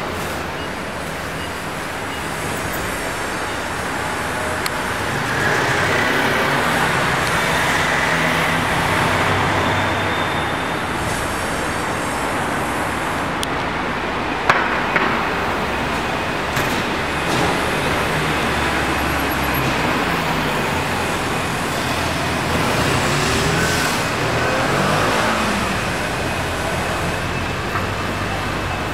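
Road traffic: a steady wash of vehicle engine and tyre noise that swells and fades as vehicles pass, with one sharp click about halfway through.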